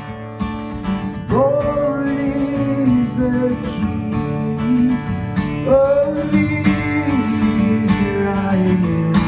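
Hymn music: a strummed acoustic guitar under a slow melody of long held notes, each sliding up into pitch, about a second in and again near the six-second mark.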